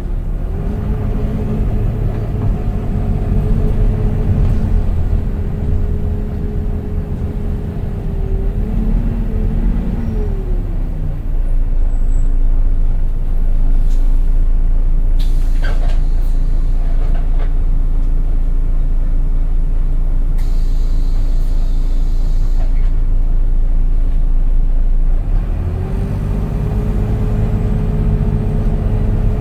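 Volvo B9TL bus's drivetrain running. Its whine drops in pitch as the bus slows, holds low and steady while it stands, then climbs again as it pulls away near the end. There are a few clicks about halfway through and a short hiss of air a little later.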